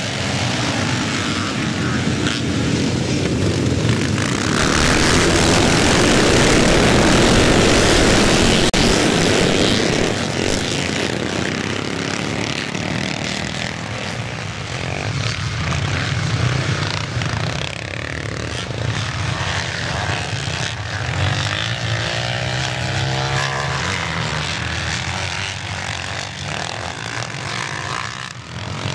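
A pack of classic twinshock motocross bikes accelerating away together, a mass of engines that swells to its loudest a few seconds in as the field passes closest. It then thins to individual bikes revving as the riders spread out around the course.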